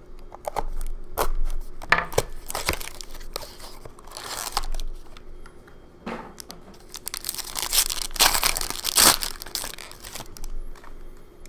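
Plastic shrink-wrap being slit and pulled off a small trading-card box, then a foil card pack crinkling in the hand and tearing open, in irregular rustles with the longest tearing near the end.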